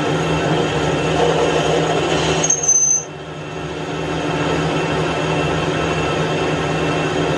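Metal lathe running with its tool cutting a steel shaft: a steady machine hum with cutting noise. About two and a half seconds in, a brief high squeal rises over it, then the sound dips suddenly and gradually builds back up.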